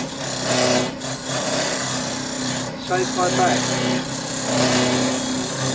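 Hollowing tool cutting inside a horse chestnut blank spinning on a wood lathe: a steady rasping scrape, with brief breaks about a second in and near three seconds.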